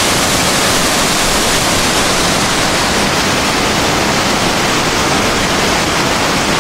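Loud, steady rush of fast-flowing water, such as a stream pouring through the ice cave.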